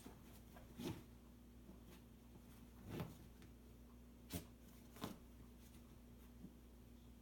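Dog digging into a puffy comforter on an armchair: soft fabric rustling, with four louder scuffs about one, three, four and a half and five seconds in.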